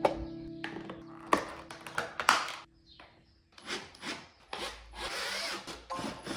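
Workshop tool work: irregular scraping and rubbing strokes, with one longer rasping stretch about five seconds in. Background music plays for the first few seconds and breaks off near the middle.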